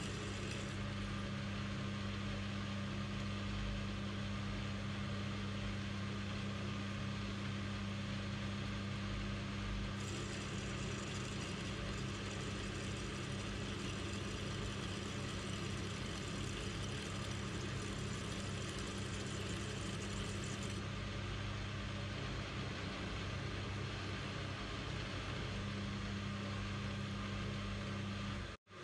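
AL960B metal lathe running steadily while a twist drill in the tailstock bores the tapping hole into the turning steel workpiece, with a constant low motor hum under the cutting noise. The sound drops out briefly near the end.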